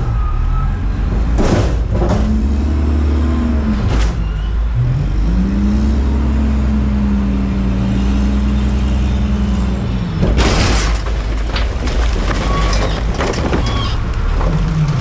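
Front-load garbage truck's diesel engine revving up and holding high twice as its hydraulic forks lift a dumpster over the cab. About ten seconds in, a loud rush and clatter as the dumpster is tipped and trash spills into the hopper, with knocks and bangs.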